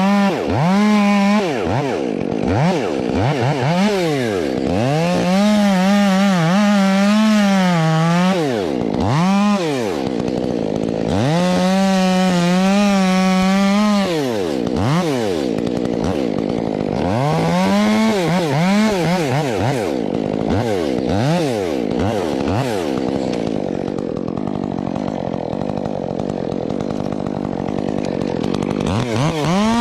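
Gasoline chainsaw engine revving repeatedly, its pitch swooping up and down with quick throttle blips. It is held at full throttle for a few seconds twice, and in between it runs lower and rougher.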